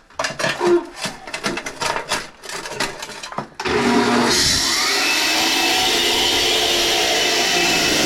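A few clattering knocks, then about three and a half seconds in a concrete saw starts up and runs loudly and steadily, its pitch dipping and settling under load.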